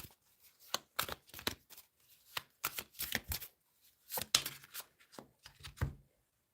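Tarot deck being shuffled by hand: a run of short, irregular rustling bursts of the cards, stopping about a second before the end.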